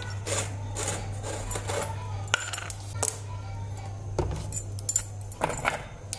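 Plastic juice bottle being handled and turned, giving a run of short scraping rustles and a few light clicks over a steady low hum.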